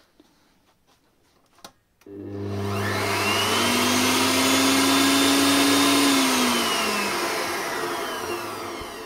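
Bosch MUM8 stand mixer: a couple of small clicks from the rotary selector knob, then the motor and whisk whir up to speed about two seconds in, run steadily for a few seconds, and wind down on their own with a falling whine. This is the fault in which the mixer runs for only a few seconds whatever the knob position.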